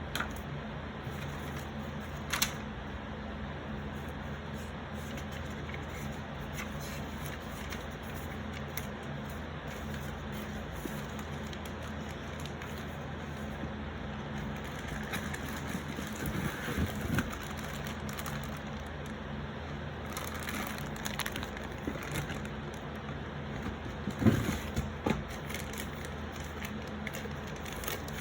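Toy playset being unpacked from its box: scattered rustling and handling of packaging with short clicks and knocks, the loudest cluster about three quarters of the way through, over a steady low hum.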